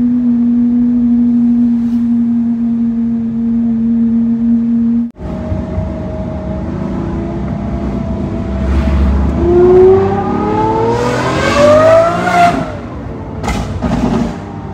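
A sports car engine holding a steady note, cut off suddenly about five seconds in, then a sports car engine revving up in rising pitch and dropping back, with a few sharp pops near the end.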